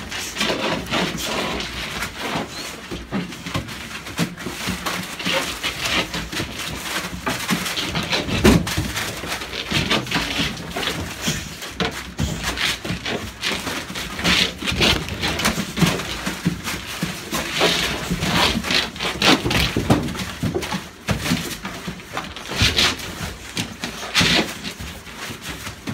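Dogs scuffling on a newspaper-lined floor right at the microphone: paper crinkling under scrabbling paws, with fur rubbing against the phone. The rustles and knocks come in an irregular, continuous jumble.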